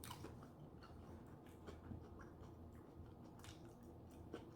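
Faint, close-up chewing of a mouthful of sushi, with scattered soft wet clicks and smacks.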